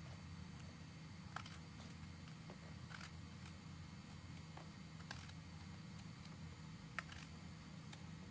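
A knife slicing a raw eggplant into rounds by hand: faint, short clicks every second or two as each slice is cut. A low steady hum lies beneath.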